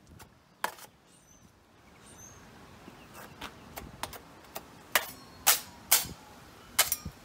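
Steel drywall taping knife clinking and scraping against the edge of a stainless mud pan while loading joint compound, about ten sharp metallic clicks, most of them in the second half.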